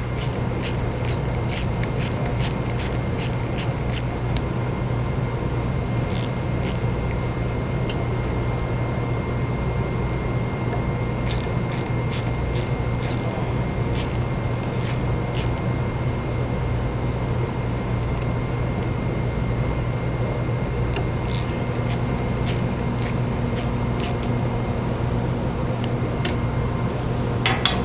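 Ratchet clicking in four runs of quick, evenly spaced clicks, a few a second, as the PZ1 torque bolts holding the burner's fuel stem are tightened a little at a time. A steady low hum runs underneath.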